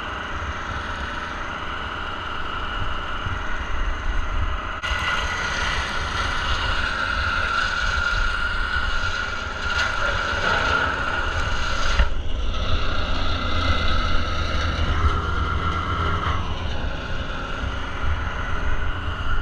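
Engine-driven machinery running steadily and loudly, with a low rumble under a sustained high whine that shifts in strength about five and twelve seconds in.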